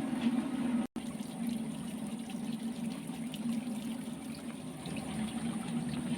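Water pouring from a spout onto a tin can, a steady splashing drone. It cuts out for an instant about a second in.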